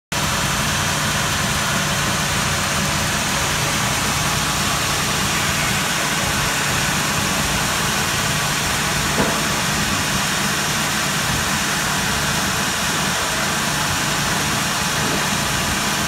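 Sawmill machinery running steadily with a constant low hum and hiss, idle rather than cutting. There is one brief tick about nine seconds in.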